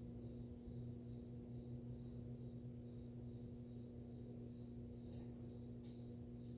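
Aquarium filter pump humming steadily, a constant low electrical drone with a faint higher tone over it. A few faint short clicks come in the last second and a half.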